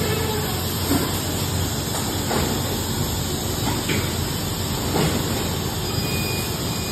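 Automatic blood bag making machine running behind glass doors: a steady mechanical hum and air hiss with soft knocks every second or so, and a faint high whine near the end.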